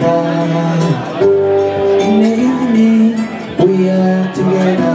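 Kora being plucked, with a man singing long held notes that slide from one pitch to the next.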